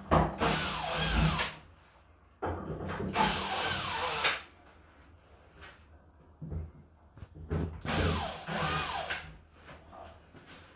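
Cordless drill-driver run in three bursts of a second and a half to two seconds each, its motor whine rising and falling in pitch, with light knocks in between: screws being driven out to open up the bath panel.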